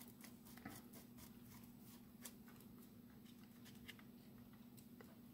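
Near silence: a few faint, scattered small clicks of a screwdriver turning the side-plate screws of a Penn Spinfisher 704Z spinning reel, over a low steady hum.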